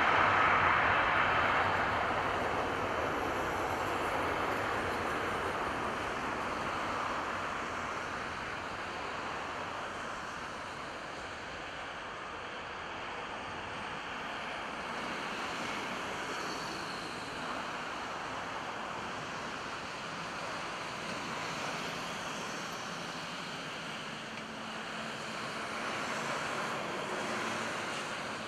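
Airbus A330 airliner's twin jet engines, a steady rushing noise with a faint whine, loudest at first and fading over several seconds as the aircraft rolls away down the runway.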